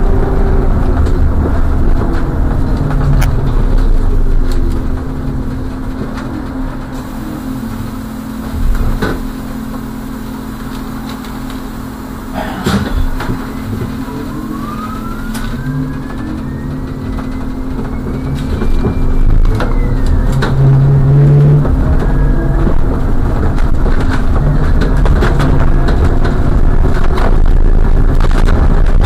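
A car driving, its engine and tyre noise heard from inside the cabin through a dashcam. The noise drops in the middle as the car slows and rises again as it picks up speed, with a single knock and a whine that rises then falls midway.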